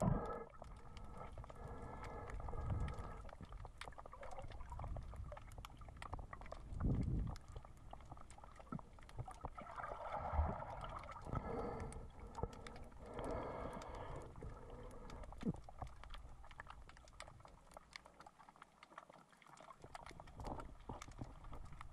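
Underwater sound picked up by a submerged camera: low water rumble and sloshing, with a steady scatter of small crackling clicks.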